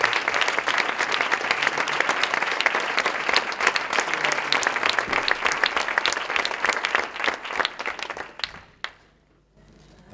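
Audience applauding: dense clapping from a roomful of people that thins out and dies away about eight or nine seconds in.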